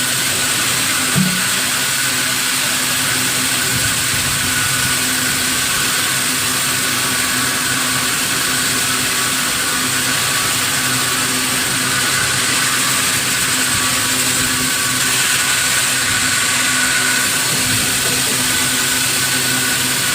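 Sawmill machinery running steadily and loudly, a constant mechanical noise with a high steady whine through it. A short low knock sounds about a second in.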